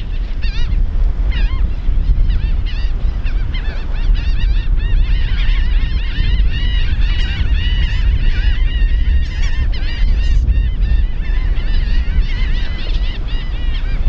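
A large flock of gulls calling as it takes flight, many short yelping calls overlapping into a dense chorus after a few seconds, over a steady low rumble.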